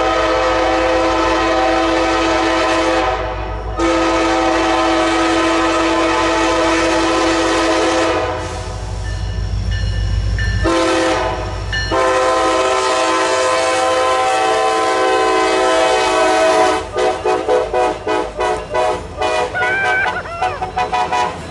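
A diesel freight locomotive's air horn sounds a chord of several notes in the grade-crossing pattern of two long blasts, one short and one long, with the engine rumbling between blasts. The last blast turns choppy as the locomotive passes close by.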